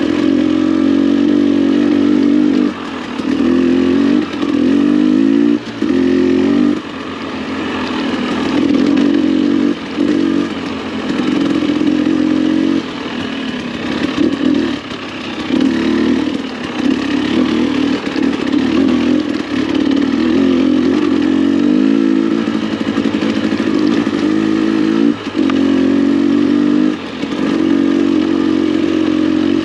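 Dirt bike engine on a single-track trail, the throttle opened and closed over and over: the engine note climbs, drops off briefly and picks up again every second or two.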